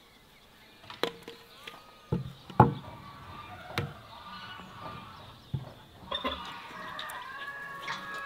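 A few sharp knocks of wood on wood while a wooden garden footbridge is being built, the loudest about two and a half seconds in. From about six seconds in, poultry clucking and calling.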